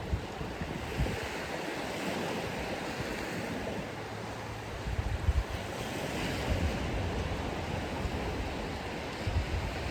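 Surf washing steadily onto a sandy beach, with wind buffeting the microphone in low rumbling gusts about five seconds in and again near the end.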